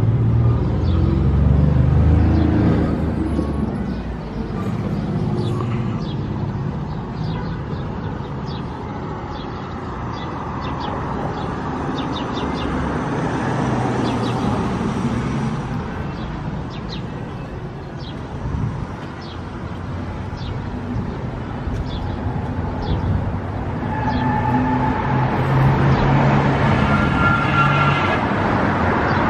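Street traffic: cars passing on the road, engine and tyre noise swelling and fading, with a pitched engine hum as a vehicle goes by near the end.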